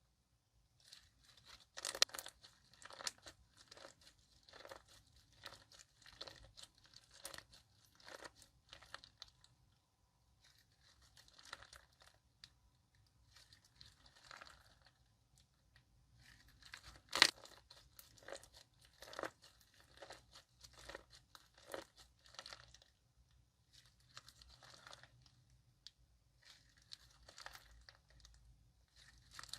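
Slime being squeezed and stretched by hand, giving soft crackles and clicks in irregular runs, with a sharper snap about seventeen seconds in.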